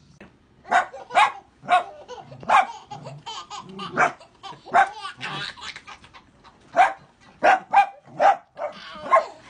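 A small dog barking repeatedly in short, sharp yaps, about a dozen at uneven intervals.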